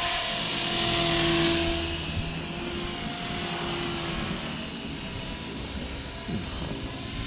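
Electric RC helicopter in flight: steady whine of the motor and the whirr of the spinning rotor blades, swelling slightly about a second in.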